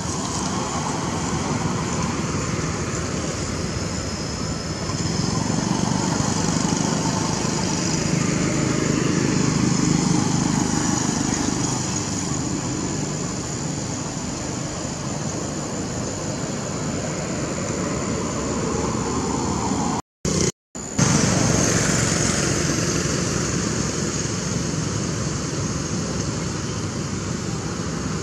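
Steady rushing background noise that swells slightly and then eases, cutting out twice very briefly about twenty seconds in.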